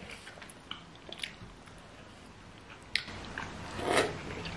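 Close-miked eating of spicy instant noodles: small wet mouth clicks of chewing, then a loud slurp of noodles about four seconds in.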